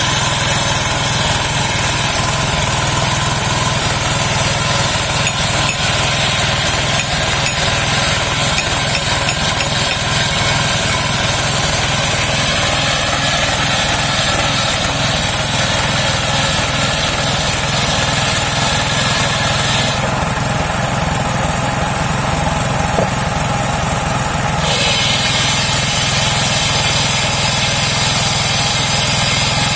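The engine of a homemade circular sawmill running steadily at a loud, even level. About twenty seconds in the higher hiss drops away for roughly five seconds, then comes back.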